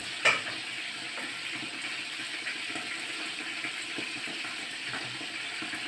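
Rabbit meat sizzling steadily in hot oil in a pan, with a single sharp clink just after the start.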